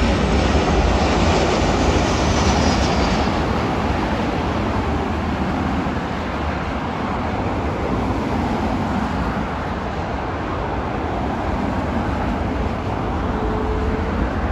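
Jet noise from a Boeing 737-900's CFM56-7B turbofan engines as the airliner comes in to land. It is loudest over the first few seconds and then eases slightly, with a faint falling whine early on.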